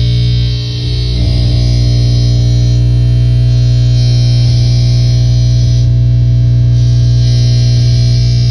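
Live harsh noise played through a table of effects pedals: a loud, dense distorted drone with a strong steady low hum and hiss on top, dipping briefly about a second in before coming back.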